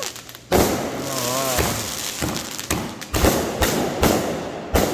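Power Blast Bone Shaker 28-shot 500 g firework cake firing in sequence: a quick run of sharp thumps and bursting reports, about eight in under five seconds. The first comes about half a second in, after a brief lull.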